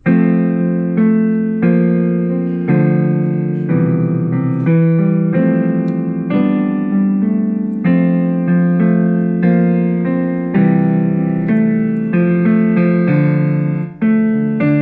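Piano-like keyboard music playing a tune, a new note or chord struck about every half second to a second, each one ringing and fading.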